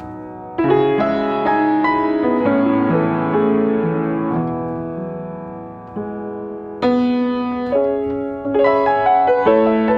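Yamaha upright piano playing a slow improvised melody over sustained chords: a chord struck about half a second in, another about seven seconds in, and a quicker run of notes near the end.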